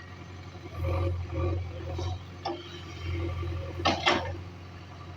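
Heavy diesel engine running steadily with a low hum, swelling louder several times, with two sharp knocks in quick succession about four seconds in.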